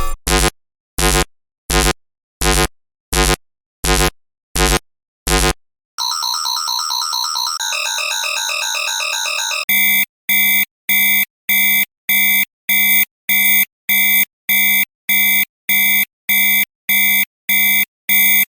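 Three synthesized science-fiction alarm sounds in turn: first about eight short pulsing blasts, a little under a second apart; then a fast-warbling tone for about four seconds; then a rapid beeping alarm of several stacked tones, about two beeps a second.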